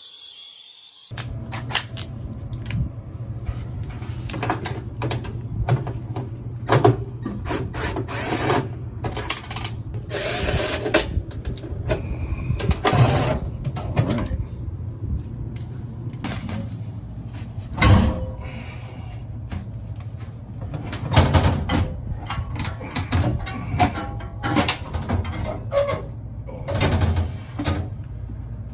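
Tool work on an air-conditioner condensing unit: many sharp metallic clanks and knocks over a steady low hum that starts abruptly about a second in.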